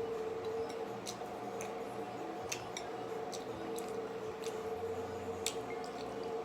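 Close-miked eating sounds: chewing with irregular wet mouth clicks and smacks over a steady background hum.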